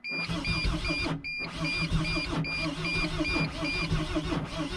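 Mercedes Sprinter diesel engine cranking on its starter motor without catching, in an even rhythmic churn with a short break about a second in. A dashboard warning chime beeps repeatedly until near the end. The owner suspects the starter is malfunctioning.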